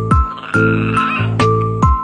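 Background music: a bouncy track with a steady beat of percussive hits over held chords.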